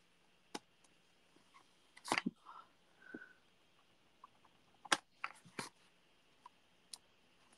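Clear acrylic stamp block set down and pressed onto scrap paper on a craft desk: a few light clicks and knocks, the strongest about two and five seconds in.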